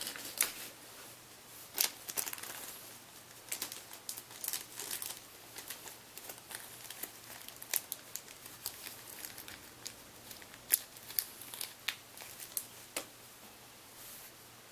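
Crinkling and rustling of a small plastic parts bag being handled, with irregular sharp clicks of small metal parts and tools.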